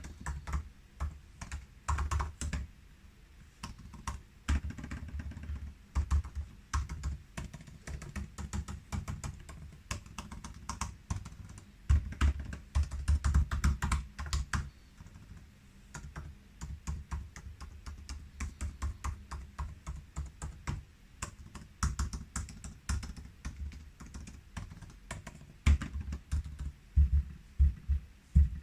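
Typing on a 2019 13-inch MacBook Pro's butterfly-switch keyboard: a continuous run of short key clicks in quick, uneven bursts with brief pauses. The typing is busiest and loudest about halfway through and again near the end.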